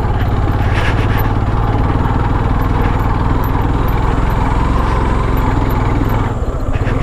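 Motorcycle engine running steadily under way, its low, rapid pulsing loud on the camera microphone, with a brief dip about six seconds in.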